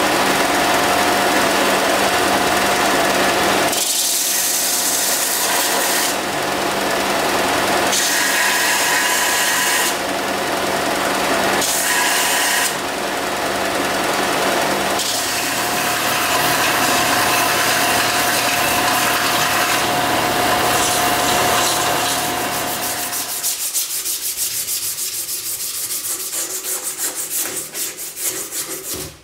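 Small bench belt sander running with a steady motor hum, the knife's wooden handle pressed to the belt in several passes that add a gritty hiss. About 23 seconds in the sander stops, and quick rhythmic back-and-forth rubbing follows: the handle being hand-sanded with an abrasive strip.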